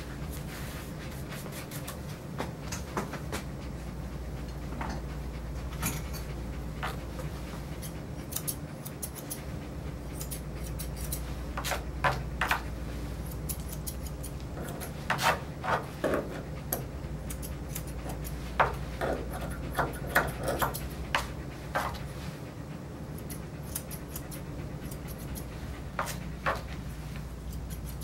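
Grooming shears snipping a dog's coat in scattered short runs of sharp snips, with brushing between them, over a steady low hum.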